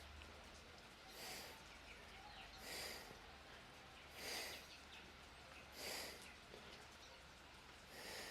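A man breathing hard from exertion, short heavy breaths coming about every second and a half.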